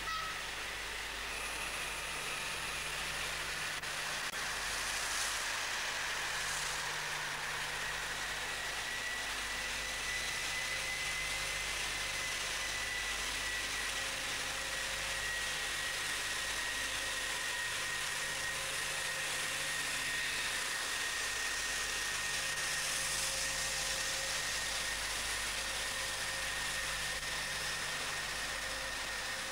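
Diesel train engines idling, a steady drone under an even hiss.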